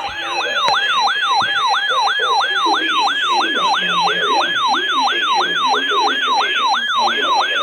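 Electronic siren-like emergency alert tone heralding a severe thunderstorm warning. It repeats a quick falling sweep about three and a half times a second at an even, loud level.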